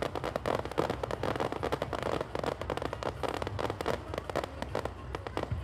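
Fireworks display: a dense, continuous barrage of rapid pops, bangs and crackling from many shells bursting at once.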